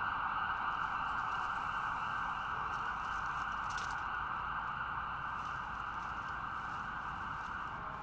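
Distant ambulance siren sounding steadily, its rapid sweeps blurred into a continuous high note, slowly fading.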